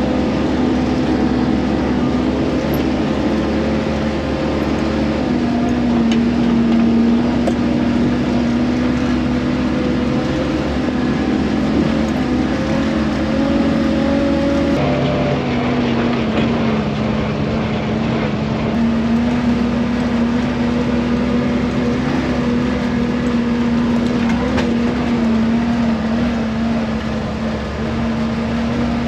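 GAZ-66 truck's V8 petrol engine running under way, heard inside the cab where the engine sits under a cover between the seats. It is a loud, steady drone whose pitch steps a few times and drops sharply about halfway through.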